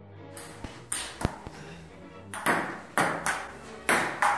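Table tennis ball clicking off a paddle and the table top: a run of sharp, hollow ticks, sparse at first, then coming about twice a second in a steady rally over the last two seconds.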